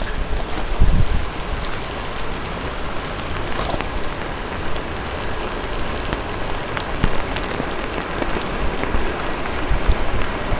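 Heavy downpour: rain falling steadily, with scattered sharper drop strikes and a brief low thump about a second in.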